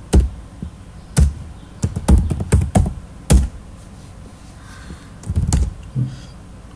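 Computer keyboard being typed on: irregular keystroke clicks, some single and some in short quick runs.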